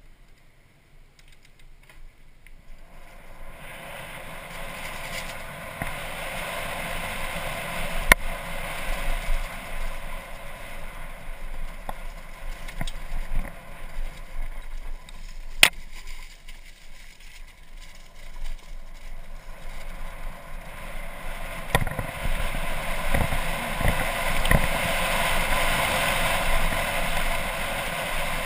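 Mountain bike rattling and rumbling over a rough dirt trail, with wind rushing across a helmet-mounted camera. The noise builds from about three seconds in and is loudest near the end, with two sharp knocks, one about a quarter of the way through and one about halfway.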